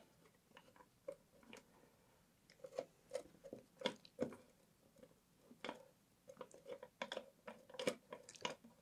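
Faint, irregular small clicks and ticks of a metal lifting eye nut being spun by hand onto threaded rod (all-thread), a few ticks a second with short pauses.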